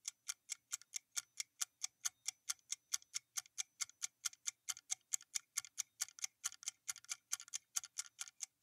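Clock-ticking sound effect for a quiz answer countdown: quiet, even ticks at about three a second.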